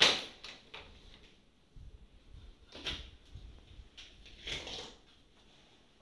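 Plastic return-air grille of a ceiling-cassette air conditioner being pushed shut into its panel: a sharp clatter at the start, then two softer scraping rattles about three and four and a half seconds in as it is handled into place.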